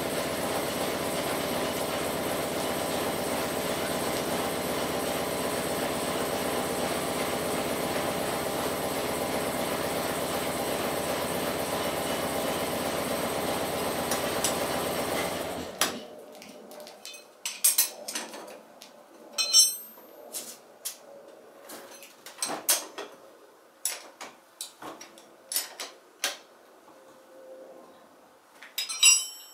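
A steady machine noise runs for about sixteen seconds and cuts off suddenly. After it, hand tools clink and knock against metal in scattered strikes while the scooter's rear wheel is worked on.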